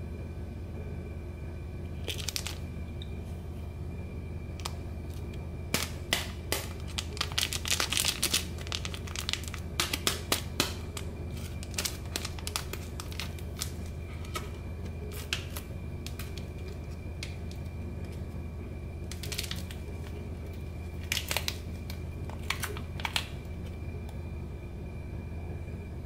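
Foil seasoning sachet crinkling and being torn open by hand, in scattered bursts of sharp crackles: a few a couple of seconds in, a long busy stretch through the first half, and another cluster near the end.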